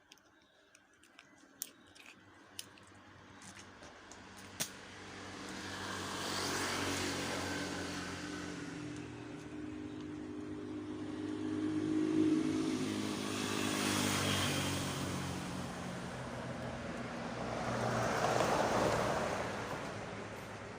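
A few faint clicks, then an engine coming into earshot about five seconds in. It runs on, swelling and easing several times, and fades toward the end, like a vehicle passing by.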